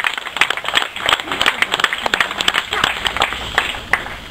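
Applause: a group of people clapping their hands, thinning out near the end, with voices mixed in.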